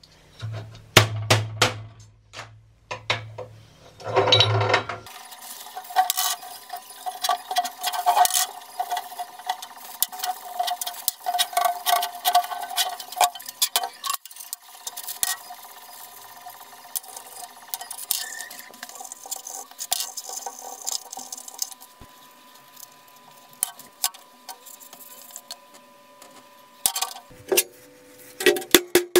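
Background music with a beat for the first few seconds. Then workshop handling noise: metal motor parts clinking, knocking and scraping on a steel workbench, with irregular clicks.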